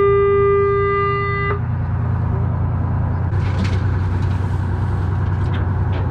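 Boat horn sounding one long, steady blast that cuts off about a second and a half in, over the steady low drone of the boat's engine. A few light knocks and clicks come near the end.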